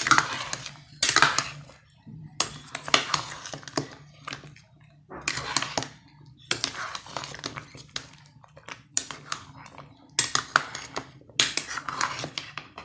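A metal ladle scraping and clinking against the inside of a metal cooking pot as thick ogbono soup with pieces of fish is stirred, in short bursts every second or two.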